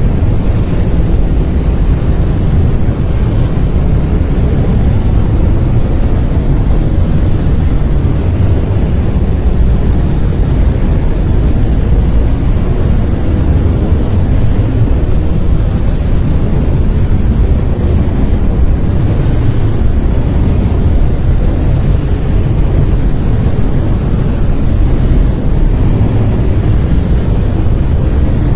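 Brown noise: a steady, deep, rumbling hiss, strongest in the bass and fading toward the highs, unchanging throughout.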